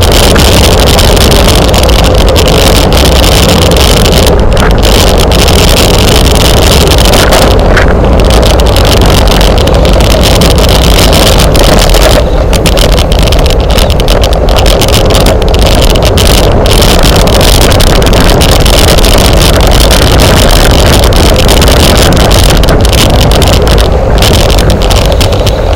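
Wind rushing over the microphone of a camera carried on a bicycle at racing speed: a loud, steady rush with no letup.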